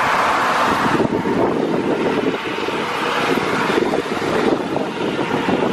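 Boeing 777-300ER's GE90 turbofans at takeoff thrust as the jet climbs away, a loud, rough, steady rumble. Wind buffets the microphone.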